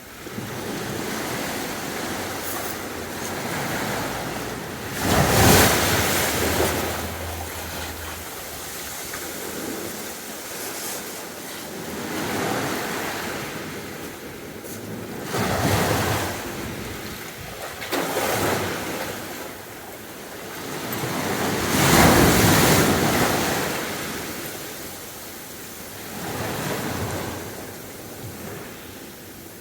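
Sea waves breaking and washing up on the beach in repeated surges, the loudest about five seconds in and again near twenty-two seconds, with quieter hiss between them.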